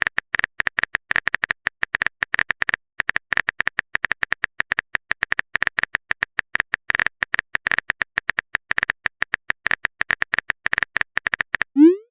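Rapid runs of short, identical clicks with brief pauses between them: a phone keyboard typing sound effect. Just before the end comes a short rising swoop, like a message-sent tone.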